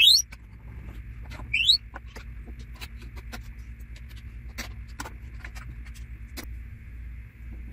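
Light clicks and taps of hands and bolts on the round top board of an Orion XT8 Dobsonian base, with two short rising squeaks, one at the very start and a louder one at about two seconds in.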